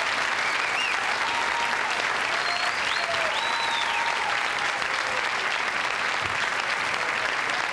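A large audience applauding steadily, with a few cheers and whoops rising over the clapping in the first half.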